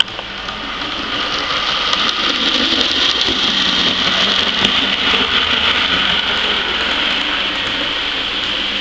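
Model railway locomotive, a German-style shunter, running along the track with a steady whir. It grows louder over the first couple of seconds, then holds steady.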